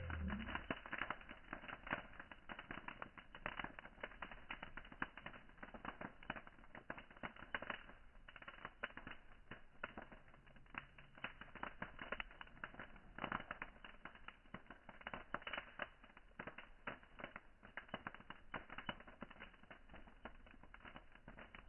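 Campfire wood crackling and popping in a dense, irregular stream of small snaps.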